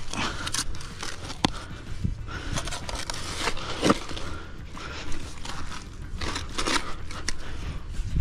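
Steel spade digging into soil and grass turf: irregular cutting and scraping strokes, with a few sharper knocks.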